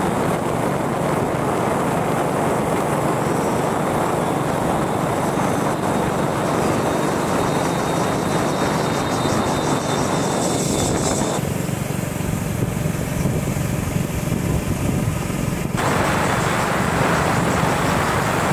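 Engine of a moving vehicle running steadily, heard under loud wind rush on the microphone. The rushing thins out about eleven seconds in and comes back strongly near sixteen seconds.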